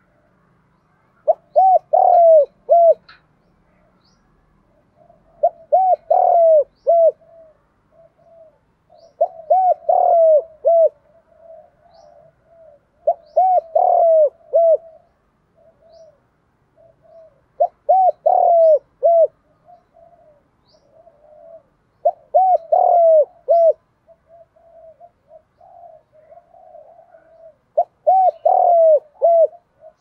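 Spotted dove cooing: a phrase of several short coos, repeated seven times about every four seconds, with fainter coos in between. It is a caged decoy dove's call, used to lure wild doves.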